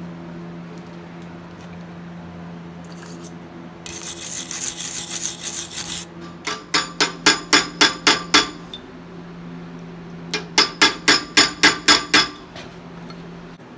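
A steel wire brush scrubs the hot Damascus steel for about two seconds. Then a hammer strikes a hand chisel in two quick runs of about nine ringing blows each, carving the eyes into red-hot Damascus steel. A steady low hum runs underneath.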